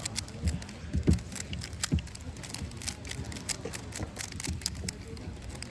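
Quick, irregular plastic clicking of a Moyu Weilong GTS VII 3x3 speedcube being turned one-handed during a solve, several clicks a second over a low hall hum.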